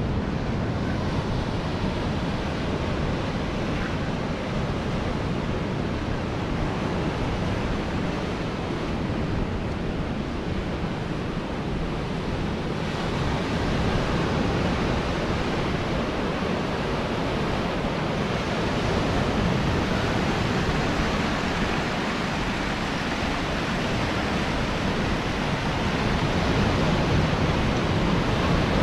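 Steady wash of ocean surf with wind noise on the microphone, growing a little louder about halfway and again near the end.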